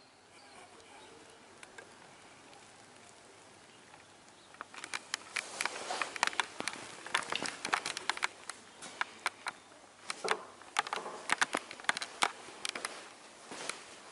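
Footsteps on a wooden floor inside a hall: irregular sharp taps and clicks starting about five seconds in, over faint steady room noise.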